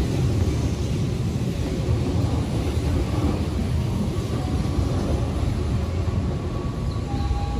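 Steady low rumble of a Keihan train standing at the platform with its doors open, heard within the noise of an underground station platform.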